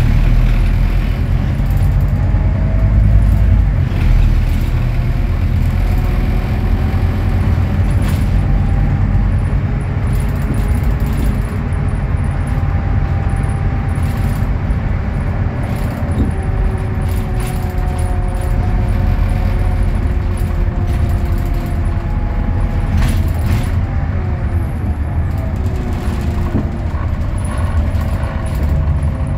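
Scania DC09 five-cylinder diesel of a Scania K320UA articulated bus running under way, heard from inside the passenger cabin: a steady low rumble with whining tones that slowly rise and fall as the bus speeds up and slows. Loose interior fittings click and rattle now and then.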